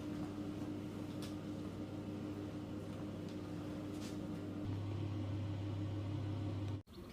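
Steady electrical hum of a running kitchen appliance, with a few faint ticks, cutting off abruptly just before the end.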